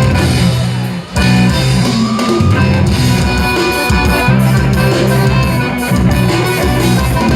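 Loud music with guitar and drums, briefly dropping out for a moment about a second in.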